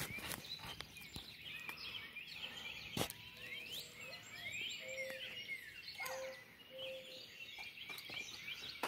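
Dawn chorus of several songbirds chirping and calling over one another, with a few low held whistled notes in the middle and a single sharp click about three seconds in.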